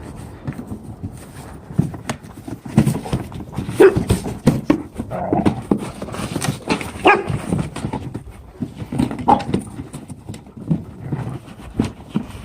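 Rottweilers playing rough: paws scuffling and thumping irregularly, with a few short dog vocal noises.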